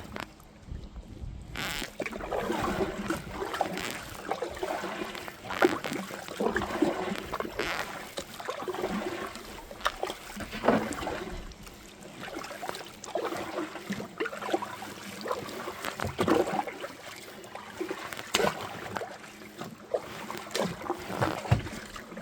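Water splashing and sloshing around a kayak, with irregular light knocks and clatters against the hull. The sound picks up about two seconds in and keeps going unevenly.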